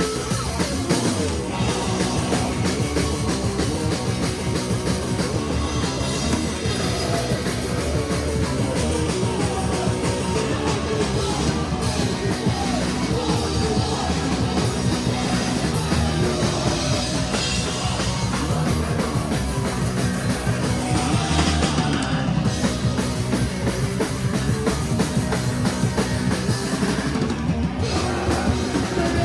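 Live punk rock band playing: loud distorted guitars and drum kit with shouted singing.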